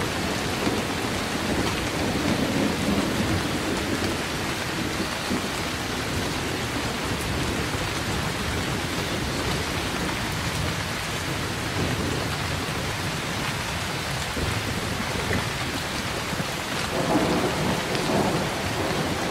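Heavy rain falling steadily, with low rolling thunder that swells near the start and again near the end.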